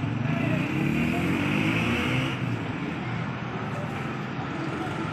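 Motor vehicle engine running close by in street traffic, louder for the first two seconds or so and then fading into steady traffic noise.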